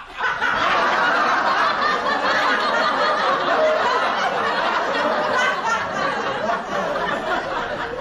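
A crowd of people laughing together, sustained and steady for several seconds, typical of a sitcom laugh track.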